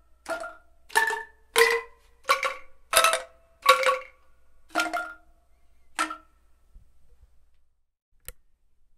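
Indonesian angklung on a rack, its tuned bamboo tubes rattled one after another to play a short melody of about eight notes, each a brief woody rattle sounding one pitch in three octaves at once. The notes stop about six seconds in, and a single click follows near the end.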